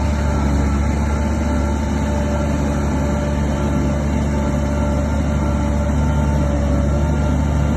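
Diesel engine of a heavy bulldozer running steadily, a deep even drone with no change in pitch or level.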